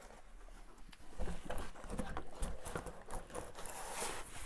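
Packaging being handled: rustling with many irregular light knocks and clicks, starting about a second in.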